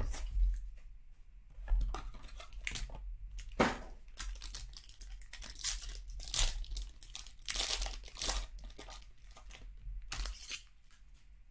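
Foil trading-card pack being torn open and its wrapper crinkled, in irregular rips and crackles.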